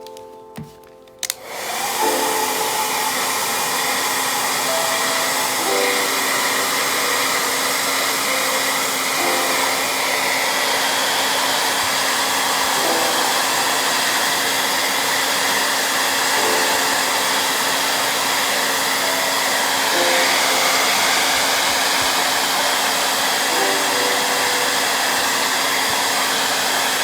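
Hair dryer switched on about a second in and then blowing steadily at full speed, with a constant hum under the rush of air.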